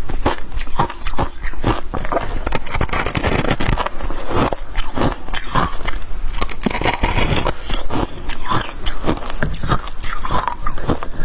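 Freezer frost being bitten and chewed, a dense run of sharp, close-miked crunches and crackles.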